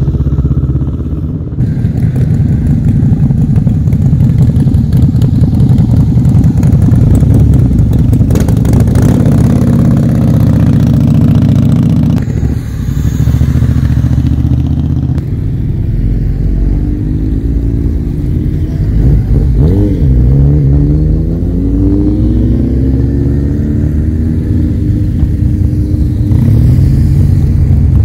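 Motorcycles riding past one after another as they pull away, their engines running loud and accelerating. Engine pitch climbs several times in the second half, with a drop and fresh climb about twenty seconds in.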